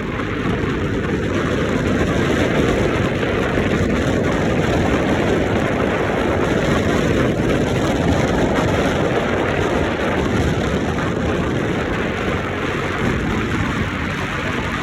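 Loud, steady rushing noise of seaside wind and surf, heaviest in the low end, with no distinct strokes.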